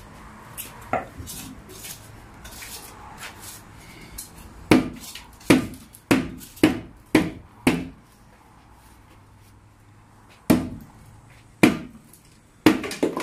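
A hammer striking a wooden shelving unit to break it apart. There are six quick blows in a row about five seconds in, then a pause, then three or four slower blows near the end.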